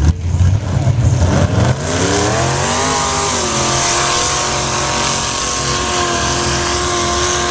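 Lifted pickup truck's engine rumbling low, then revving up hard about a second and a half in and holding at high revs as the truck plows through the mud bog pit.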